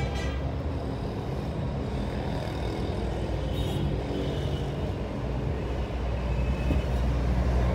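Steady low rumble of a motor vehicle engine running, with no distinct clinks from the parts being handled.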